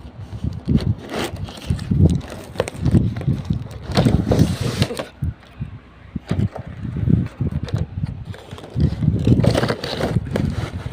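Toy packaging being handled and opened: irregular knocks, thumps and rustles.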